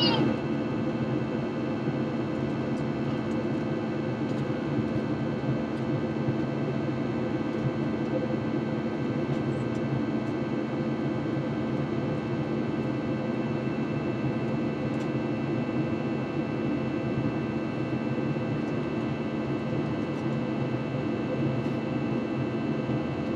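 Steady cabin drone of an Airbus A321 in flight: engine and airflow noise, a low rumble with several steady tones above it.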